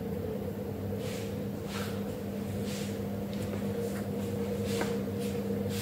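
A steady low hum holding two even tones, with a few faint short soft brushing sounds scattered through it.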